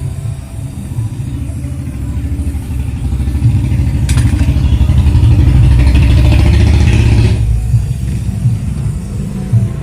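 An engine running with a fast low throb, growing louder over several seconds. A hissing noise joins it about four seconds in and stops abruptly near the end.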